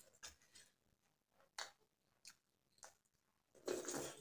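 Close-up eating sounds: soft, scattered chewing clicks, then a louder, longer mouth noise near the end as a spoonful is taken.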